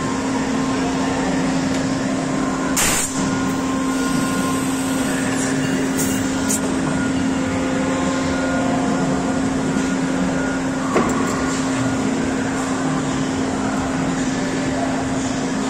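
CNC machining center running with a steady hum, and a few short hisses about 3 and 6 seconds in.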